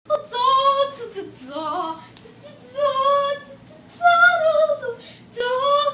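A high female voice singing a wordless tune in about five long held notes with short breaks between, some sliding down at the end.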